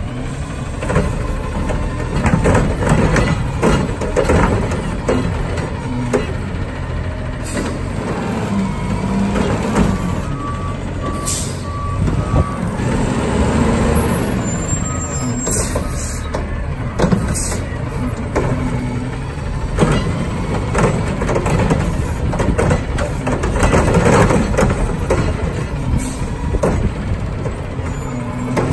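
Heil front-loading garbage truck working: its diesel engine runs and revs under hydraulic load. A reverse alarm beeps about five times a third of the way in, and sharp air hisses come a little past the middle.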